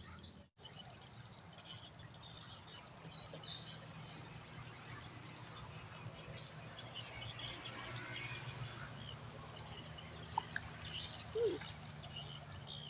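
Outdoor ambience of insects trilling in a steady, fast-pulsing high note, with scattered bird chirps. A brief louder sound comes near the end.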